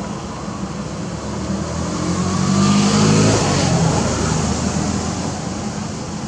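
A motor vehicle passing by: its engine and road noise swell up, are loudest about three seconds in, then fade away over a steady background hum.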